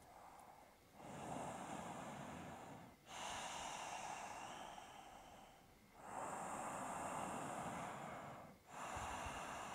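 A person breathing slowly and audibly while holding a yoga forward fold: four long breaths, each lasting two to three seconds, with short pauses between them.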